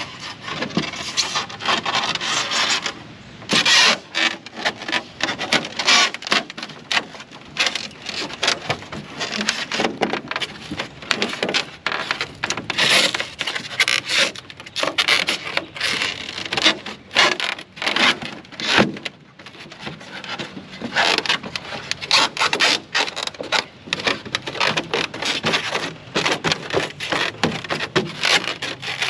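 Rigid pink foam board rubbing and scraping against the boat's hull and ribs as pieces are pushed and pressed into the floor, in a rapid, irregular run of scrapes and squeaks.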